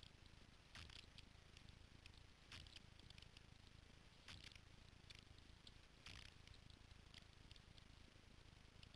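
Near silence: faint outdoor ambience with a few soft, brief rustles.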